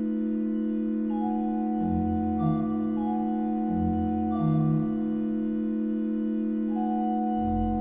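Pipe organ playing a slow passage: a chord held steady under a higher melody line of long notes, with deep pedal notes sounding about two, four and seven and a half seconds in.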